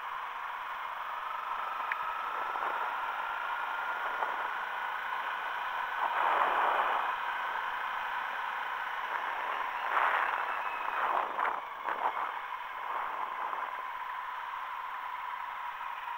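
Ride on a Honda CRF 250L heard from a helmet-mounted camera: a steady rushing of wind on the microphone with the motorcycle's engine faint beneath it. A faint tone rises slowly over the first few seconds, and the rushing swells louder a few times around the middle.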